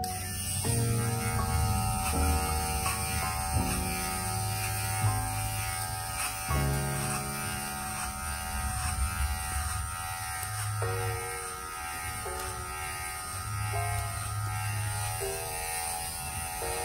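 Kemei KM-2002 electric hair clipper running steadily as it cuts hair at the side and back of the head, with background music playing throughout.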